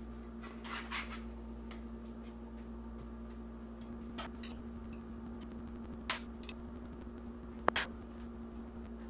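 A metal spatula scrapes under a baked fish fillet in a baking pan about a second in. This is followed by a few sharp clinks of utensils against a glass plate and dishes, the loudest near the end, over a steady low hum.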